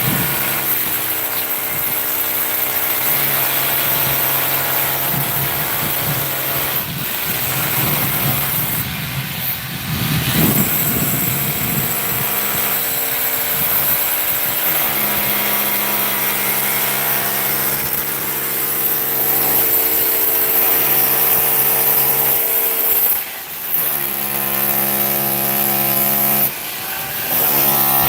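A power tool's motor running continuously with a steady hum, its pitch shifting several times as the load changes.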